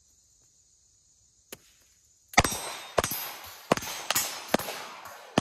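A sharp wooden knock about a second and a half in, the start signal, then rapid pistol fire from two shooters: about six shots over three seconds, each with a long echoing tail. Crickets chirp steadily until the first shot.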